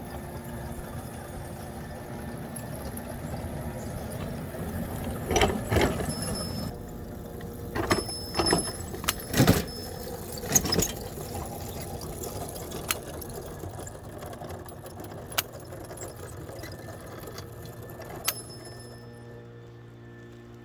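Metal parts and hand tools clanking and knocking during disassembly of a small electric locomotive: about nine sharp knocks, several bunched in the middle, some with a short metallic ring, over a steady background noise.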